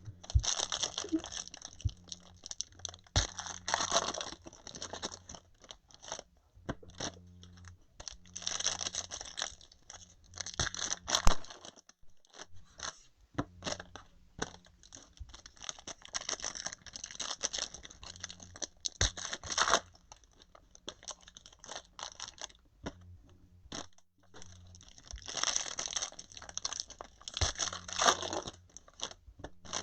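Plastic and paper card packaging crinkling and tearing in repeated bursts of a second or two, with light clicks and taps of trading cards being handled between them.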